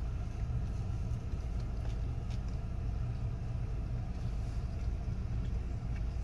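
Car engine idling, heard from inside the cabin as a steady low rumble, with a few faint clicks.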